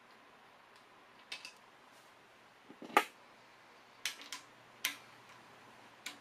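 Scattered sharp metallic clicks and clinks of hand tools and the timing chain and cam gear being worked by hand on a Honda K24 engine, about seven in all, the loudest about three seconds in.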